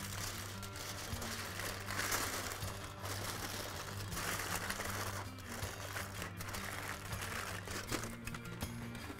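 Aluminium foil crinkling and crumpling as it is folded and crimped by hand, loudest about two seconds in and again around four to five seconds, over background music with a steady bass line.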